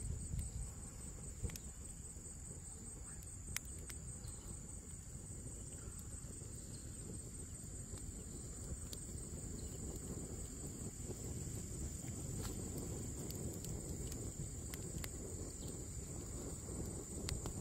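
Steady high-pitched insect buzz, with sparse sharp pops and crackles from a small wood campfire.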